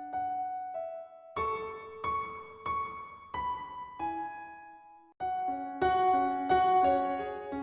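Gentle background piano music: slow notes struck one after another, each ringing and fading. It breaks off for a moment about five seconds in, then starts again.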